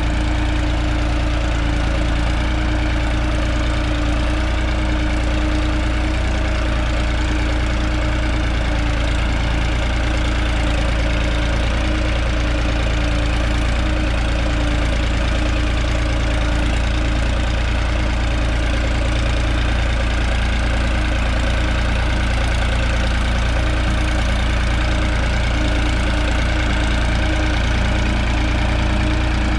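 New Holland 3630 TX Plus tractor's three-cylinder diesel engine running steadily under the load of a disc harrow. The throttle is set at 1700 rpm, and the load pulls the engine down to about 1500 rpm.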